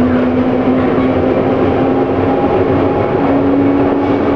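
London Underground 1967 Tube Stock train running, heard from inside the carriage: a steady, loud rumble and rattle of wheels on rail, with a steady whine that steps slightly higher in pitch about three seconds in.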